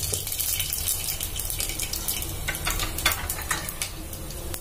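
Whole spices (bay leaves, cinnamon, cloves, cardamom and shahjeera) sizzling and crackling in hot oil in an open pressure cooker, with a few sharper crackles around the middle.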